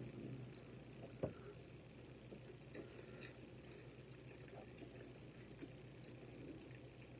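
Faint chewing of a spinach omelette, with small wet mouth clicks over a steady low hum. One sharp click a little over a second in.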